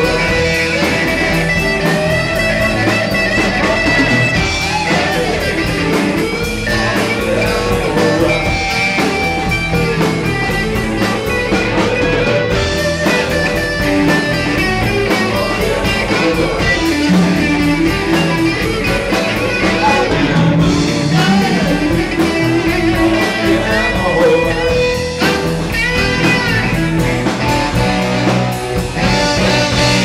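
Live blues band playing, with electric guitar prominent alongside saxophone and keyboard.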